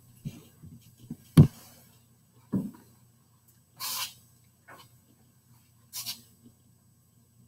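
A person moving about at a desk near the microphone: a sharp knock about a second and a half in, a duller thud a second later, then two short hisses, over a faint low steady hum.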